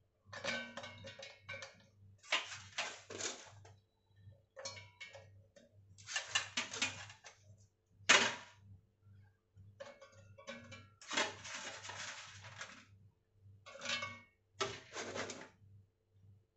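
Pieces of fresh coconut dropped by hand into a stainless steel mixer-grinder jar, clattering against the steel in irregular clusters of clicks and rattles with short pauses between handfuls.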